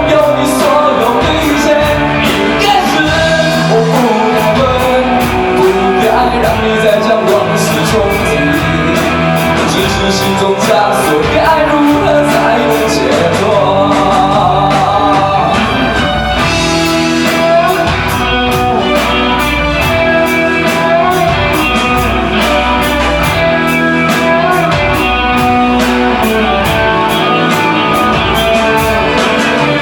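Student rock band playing live: electric guitar, bass and drums with a steady beat, and a singer's voice over them.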